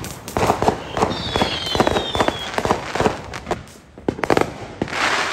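Ground firework on a patio crackling and popping in rapid sharp cracks, with a brief falling whistle about a second in. After a short lull there are a few more pops and then a hissing rush near the end.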